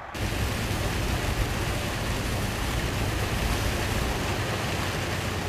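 Heavy rain pelting a truck's windshield while driving, heard from inside the cab as a steady hiss over a low rumble of road noise, starting abruptly.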